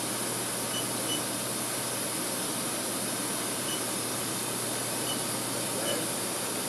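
Haas VF-3 vertical machining center running: a steady whirring hiss over a constant low hum, with a few faint, short high chirps.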